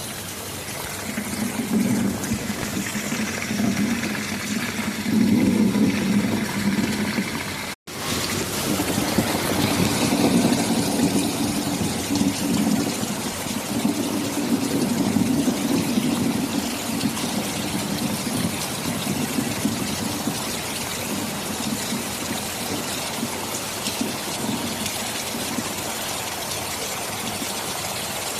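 Heavy, steady rain with rolling thunder rumbling low beneath it for most of the first twenty seconds. The sound cuts out for an instant about eight seconds in.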